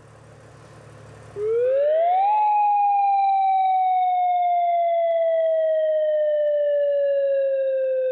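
Civil defense outdoor warning siren sounding during a test: it winds up about a second and a half in, then holds one long tone that sinks slowly in pitch.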